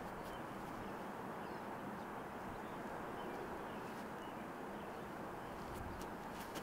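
Outdoor ambience: a steady, even background hiss and rumble, with a few faint high ticks scattered through it.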